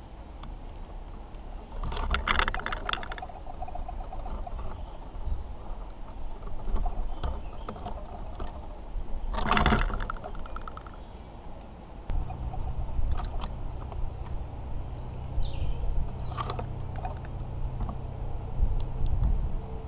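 Scratching and knocking from a grey squirrel moving about on a wooden bird table close to the microphone, in two loud bursts about two and ten seconds in. A low steady hum sets in about twelve seconds in, and a few high chirps from garden birds follow shortly after.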